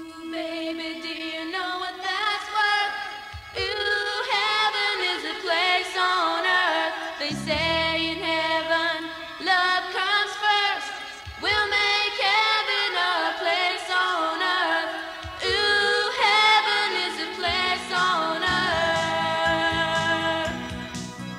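Music: a song sung with a lead voice over layered backing vocals, a bass line coming in about seven seconds in.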